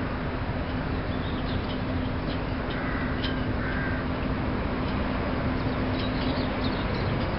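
Peregrine falcon giving short harsh calls, a few in a row around the middle and again near the end. Under the calls runs a steady low hum and background noise.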